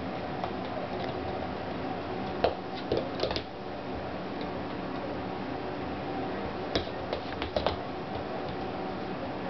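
Pygmy goat kids' small hooves tapping on a laminate wood floor: scattered sharp clicks, bunched around three seconds in and again around seven seconds in, over a steady low hum.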